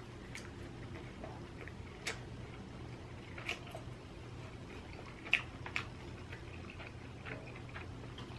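Faint mouth clicks and smacks of someone chewing inari sushi, scattered about six times.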